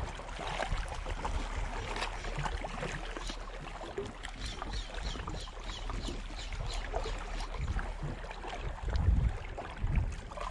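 Sea water lapping and splashing against the rocks of a breakwater, full of small wet ticks. Wind buffets the microphone in low gusts, strongest about nine seconds in.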